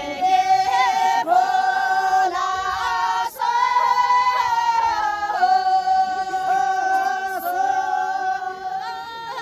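Group of women singing a slow folk melody in unison, with long held notes.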